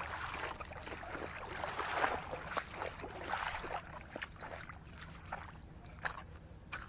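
Shallow water splashing and sloshing at the bank's edge, with irregular small knocks and rustles, busiest in the first few seconds and then quieter with scattered ticks.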